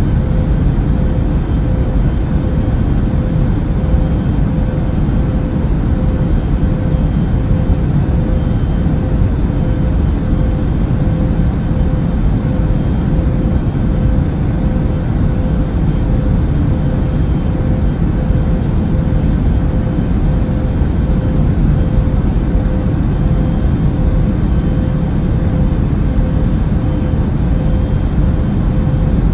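Airbus A380 cabin noise in flight: a steady, unbroken low rumble of engine and airflow with a faint constant hum above it.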